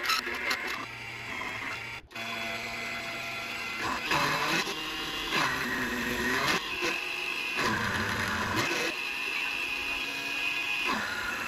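Proxxon MF70 mini mill running, its end mill cutting aluminium: a steady motor whine with cutting noise, the pitch sagging and recovering several times as the cutter takes load.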